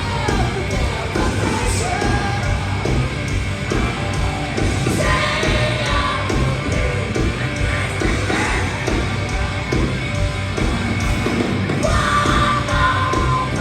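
Live heavy rock band playing loud, with distorted guitars, bass and pounding drums under shouted, yelled vocals.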